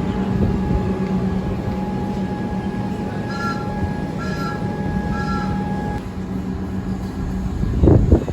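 A train passing close by: a steady rumble with a low hum and fainter higher whining tones, and three short high calls about a second apart in the middle. Near the end, loud gusts buffet the microphone.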